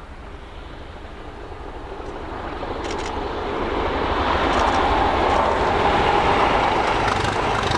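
Class 37 diesel-electric locomotive with its English Electric V12 engine running as it approaches and passes on its own, with no coaches. The sound grows steadily louder through the first half, then stays loud as it goes by.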